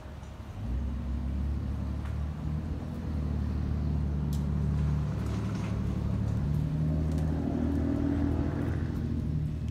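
A motor vehicle's engine running with a steady low hum that comes in about half a second in and holds, its pitch shifting only slightly.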